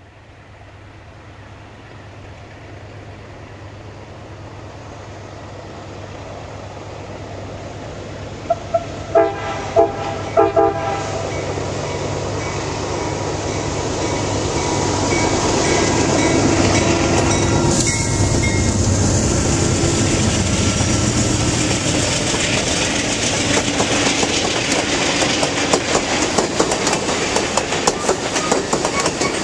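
Amtrak Southwest Chief passenger train approaching at speed, its sound growing steadily louder; about nine seconds in the leading GE P42 diesel sounds a quick series of short blasts on its K5LA five-chime horn. The diesel locomotives go by with a deep engine hum, then the Superliner cars follow with rapid clickety-clack of wheels over the rail joints.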